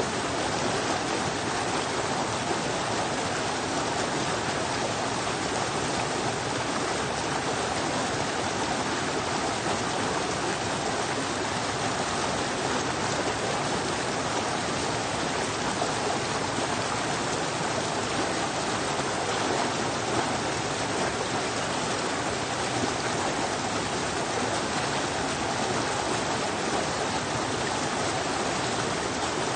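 Small forest stream rushing and splashing down a series of little cascades over rocks: a steady, unbroken rush of water.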